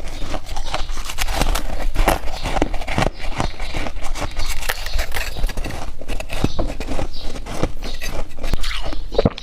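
Ice being bitten and chewed: dense, irregular crunching and crackling.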